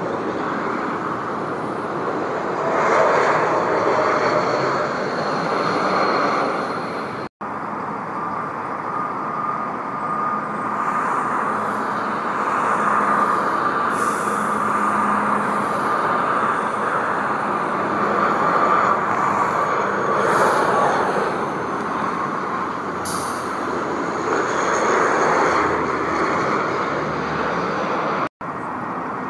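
Airliner engines running with a steady loud rush and a whining tone that holds through the middle, broken by two brief drop-outs to silence, about seven seconds in and near the end.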